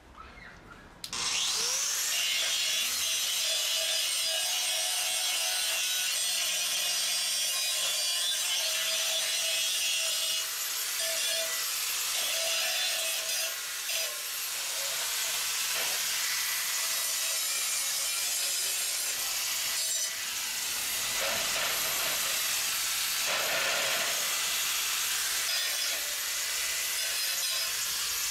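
Corded angle grinder starting about a second in with a rising whine as the disc spins up, then grinding steadily on steel plate, smoothing welded joints and plate surfaces, with a few brief dips as the disc eases off the metal.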